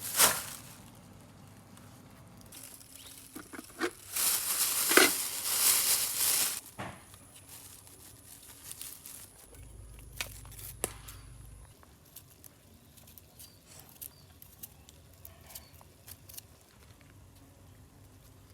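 Crinkling and rustling, loudest for about two seconds some four seconds in, amid scattered light taps and clicks of things being handled.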